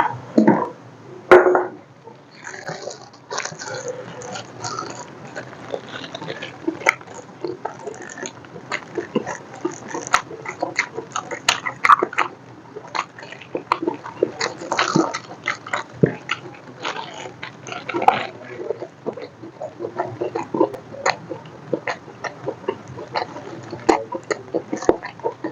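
Close-miked ASMR eating and drinking mouth sounds: irregular wet clicks and short bursts of chewing and sipping, with the loudest couple of bursts about a second in.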